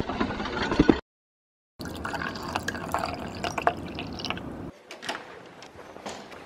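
Water poured into a drinking glass, splashing and bubbling as it fills. The sound breaks off completely for about a second near the start and drops much quieter near the end.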